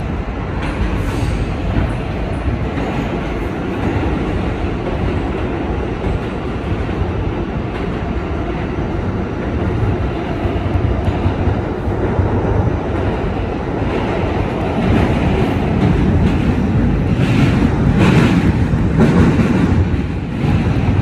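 2023 Kawasaki R211A subway car running through a tunnel, heard from inside the car: a steady rumble of wheels on rails. It grows louder about fifteen seconds in, with a few sharp clicks near the end.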